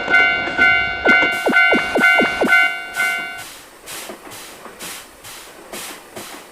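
Japanese level-crossing alarm bell ringing its 'kan-kan' at about two strokes a second, stopping about three and a half seconds in. A passing train's rhythmic clickety-clack over the rail joints carries on and fades.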